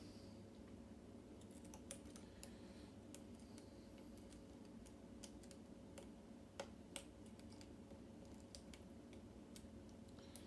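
Hook pick and tension wrench working the pins of a pin tumbler lock cylinder: faint, irregular small clicks and ticks of metal on metal, with two sharper clicks about two-thirds of the way through.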